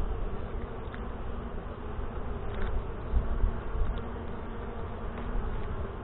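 Honey bees buzzing steadily around an opened hive, with a few faint clicks from the hive tool and wooden frames being worked loose.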